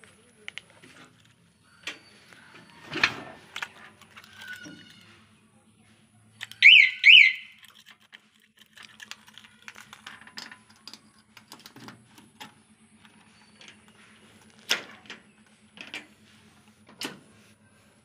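Remote-control anti-theft security alarm fitted to a Swaraj 744 FE tractor giving two quick, loud siren chirps, each sweeping up and down in pitch, about seven seconds in. Scattered clicks and knocks of handling around the cab come before and after.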